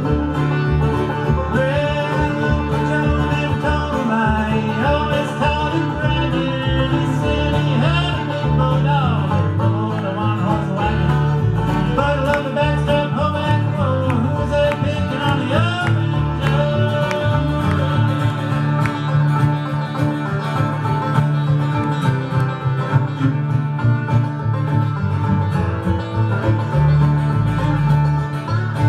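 A bluegrass string band playing a fast instrumental tune live, with driving banjo and guitar, fiddle sliding through the melody, and a steady bass line underneath.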